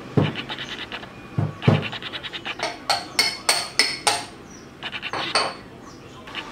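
Metal espresso prep tools being knocked and clinked together: a few dull knocks and quick rattling taps, then several sharp ringing metallic clinks around the middle, and a few light clicks near the end.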